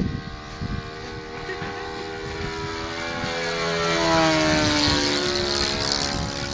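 Radio-controlled Hawker Hurricane Mk1a scale model flying past, its motor and propeller note swelling to a peak about four seconds in, then dropping in pitch and fading as it goes by.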